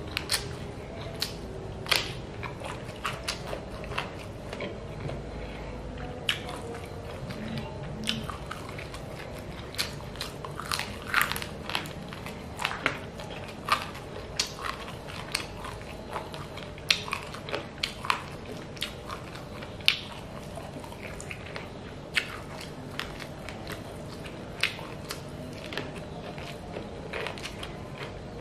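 Close-up eating of chicken feet in red chili sauce with rice, by hand: irregular wet chewing, smacking and sharp crunchy clicks, a few a second, over a faint steady hum.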